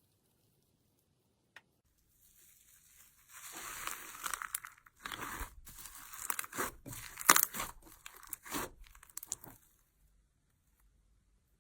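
Slime being squeezed and stretched by hand: sticky crackling with a quick run of small pops and clicks, starting about two seconds in and stopping near the end.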